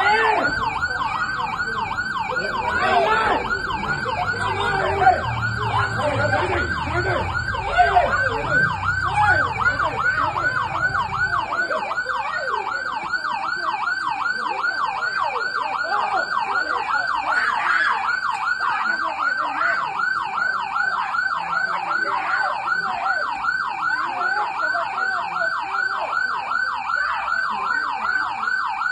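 Police siren on a yelp, rapid up-and-down sweeps repeating over and over without a break. A low rumble underneath stops abruptly about eleven seconds in, and there are a couple of sharp knocks early on.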